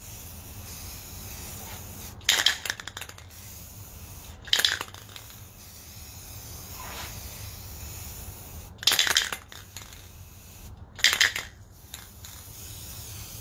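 Aerosol spray-paint can sprayed in four short bursts, a few seconds apart.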